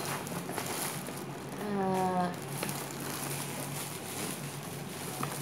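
Faint handling noise as packaged products are moved about on a shelf, with a short murmured voice sound about two seconds in.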